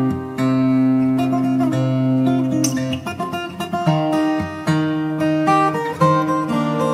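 Background music on acoustic guitar, with plucked chords that change every second or so and a busier run of quick notes midway.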